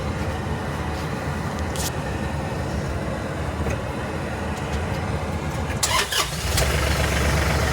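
Yanmar YT235 tractor's diesel engine running steadily. A couple of sharp clicks come about six seconds in, and the engine sounds louder after them.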